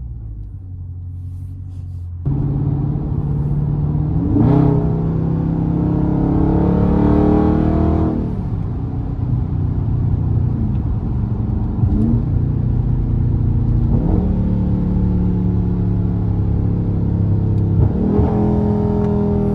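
Dodge Scat Pack's 392 HEMI V8 under throttle, its exhaust note jumping up suddenly a couple of seconds in, then climbing in pitch and dropping back at each gear change several times as the car accelerates.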